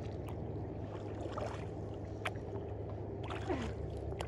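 Kayak paddling: a double-bladed paddle pulling through calm lake water, with two swishing strokes, about a second and a half in and again about three and a half seconds in, and a few sharp ticks, over a steady low rumble.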